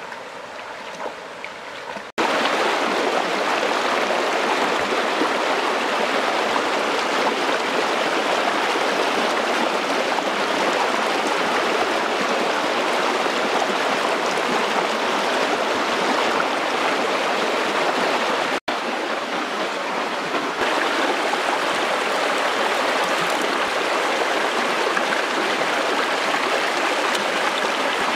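Shallow stream water rushing and rippling past close by, a steady, continuous wash. It is quieter for the first two seconds and then comes in loud all at once.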